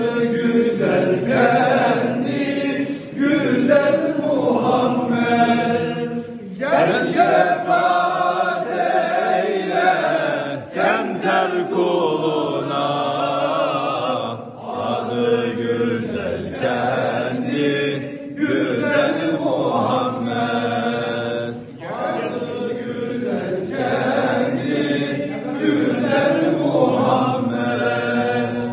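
A group of men chanting Islamic devotional hymns together in long, held phrases, their voices ringing in a stone church hall.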